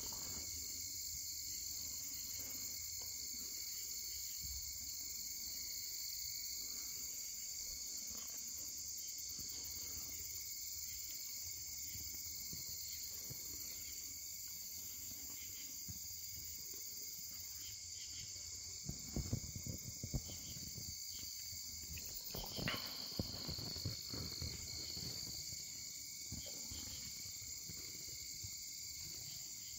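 A steady nighttime chorus of crickets and other insects trilling on several high pitches. A few soft bumps and rustles come about two-thirds of the way in.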